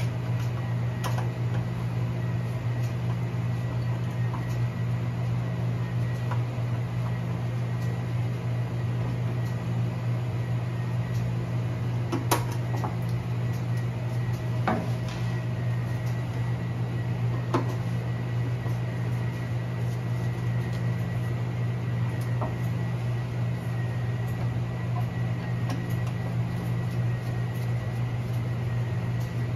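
Steady electric motor hum with a faint high whine, broken by a few sharp clicks of parts being handled.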